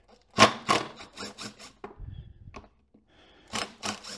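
Cordless driver with a socket running in short bursts, backing small bolts out of a power window motor: one burst about half a second in, a quick run of brief ones around a second in, and two or three more near the end.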